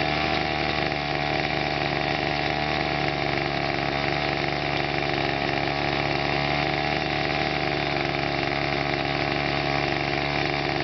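Gas chainsaw idling steadily, not revved.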